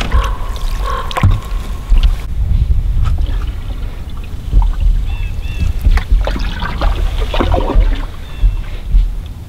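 Sounds of a canoe on calm water: knocks of the wooden paddle and gear against the hull and some water movement, under a low wind rumble on the microphone. A few short high chirps come about five seconds in.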